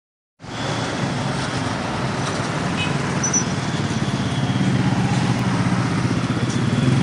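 Road traffic: motorcycles, cars and trucks running past with a steady low engine hum, starting after a brief silence and growing a little louder in the second half as heavier vehicles, a large coach among them, draw near.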